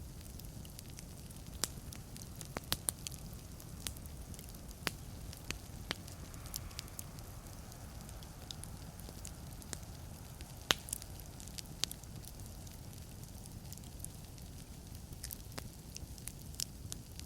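Wood fire burning in a fireplace: a steady low rumble of flames under irregular sharp crackles and pops of the burning logs, with a brief soft hiss around the middle.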